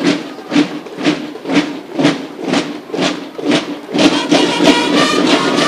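Music with a steady beat of about two beats a second. About four seconds in, a denser layer of sustained tones joins it and the sound becomes fuller and steadier.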